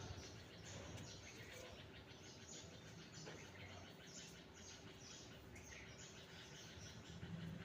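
Faint chirping of small birds: many short high calls, each sliding downward in pitch, repeating a few times a second.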